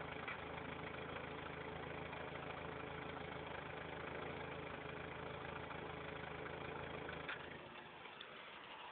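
Factory-turbo Toyota 4Runner's 22R-TE four-cylinder engine idling rough, its exhaust pulsing erratically. The low engine note cuts off abruptly with a click about seven seconds in.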